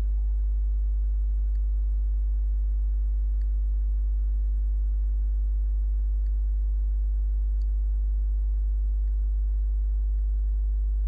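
Steady low electrical hum, with five faint clicks spread through it from a thumb pressing a BlackBerry's trackpad and keys.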